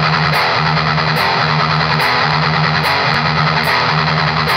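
Heavy metal music: a loud, steady electric guitar riff.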